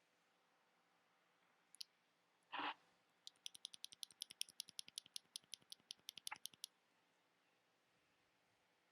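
Mechanical keyboard switches pressed in rapid succession, about nine sharp clicks a second for some three and a half seconds. A brief rustling thump comes just before the run.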